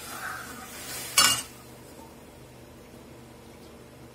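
Kitchen utensils clanking once, sharply, about a second in, against an aluminium kadai as gram-flour batter goes into the chutney, with a softer scrape or pour just before it and a low steady hum behind.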